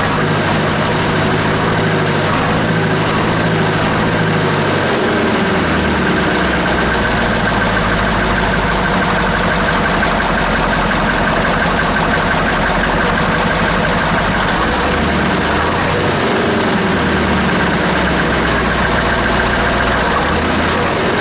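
1948 Buda 8-DC-1125 straight-eight diesel, 1125 cubic inches, running steadily with a dense, even firing rhythm. Its low drone shifts slightly about five seconds in and again near the end.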